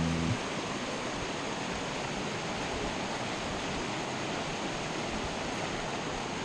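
Steady rush of river water pouring over concrete. A low steady hum cuts off abruptly a moment in.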